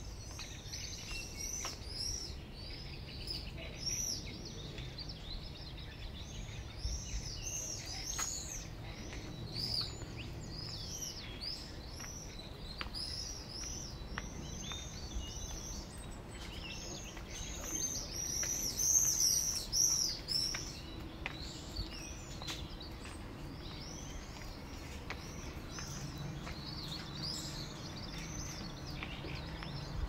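Small birds chirping busily outdoors: many short high chirps overlapping throughout, busiest a little past the middle, over a faint steady background hum.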